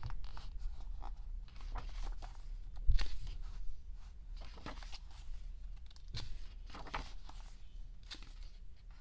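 Paper and plastic album inserts rustling and crinkling as they are handled, in short irregular bursts, with one sharp thump about three seconds in.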